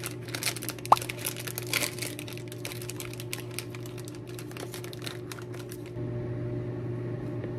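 Thin plastic cake wrapper crinkling and crackling as it is handled and opened, with a short squeak about a second in. The crinkling stops about six seconds in, leaving a steady low hum.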